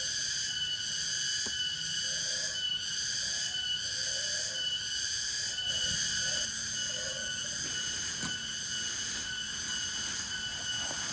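Dense chorus of night insects (crickets and similar): steady high-pitched trilling on several pitches at once, pulsing evenly a little faster than once a second.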